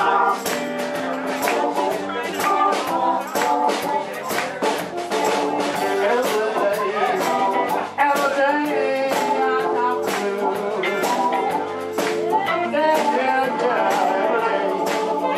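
Live electric blues band playing: bass, electric guitar, drums and keyboards on a steady beat, with a bending lead line from a blues harmonica played cupped against a microphone.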